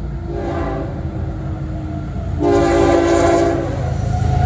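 Florida East Coast diesel freight locomotive sounding its air horn for a grade crossing: one blast ending about a second in, then a louder blast from about two and a half seconds to nearly four. Under it runs the locomotive's low diesel rumble, which grows louder near the end as it reaches the crossing.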